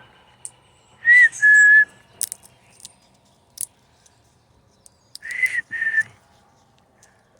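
A person whistling a two-note bird call twice, about four seconds apart: a short higher note, then a lower note that is held. Between the calls there are a few faint, sharp clicks.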